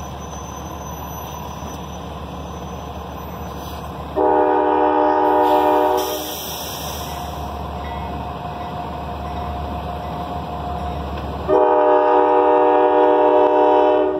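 Diesel locomotive air horn sounding two long blasts for a grade crossing, each a chord of several steady tones. The first comes about four seconds in and lasts nearly two seconds. The second, about two and a half seconds long, starts near eleven and a half seconds and stops just before the end, with the low rumble of the approaching train between them.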